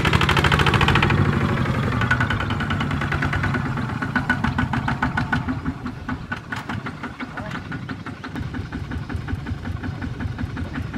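Single-cylinder diesel engine of a Kubota two-wheel walking tractor running under way, a rapid, even chugging that gets quieter after about four seconds.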